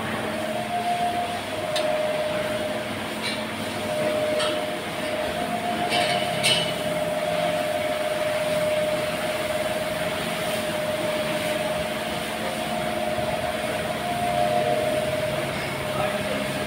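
A steady mechanical drone with a constant hum running through it, broken by a few short sharp clicks or clanks in the first half.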